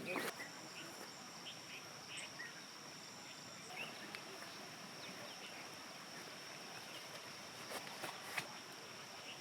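Crickets or similar insects trilling in one steady high note over faint background hiss, with a few small scattered taps.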